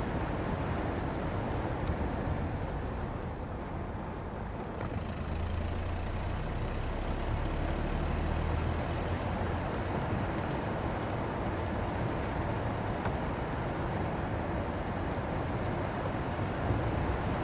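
Car tyres rolling over a rough road surface: a steady low rumble of road noise that eases briefly about four seconds in, then picks up again, with a few faint ticks.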